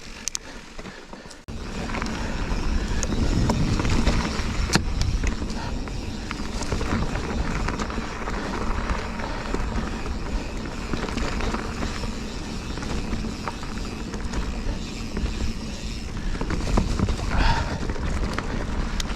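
Mountain bike riding over rough, rocky trail: steady tyre rumble with a constant rattle of small knocks and clatters from the bike, with wind noise on the camera microphone. The noise comes in abruptly about a second and a half in.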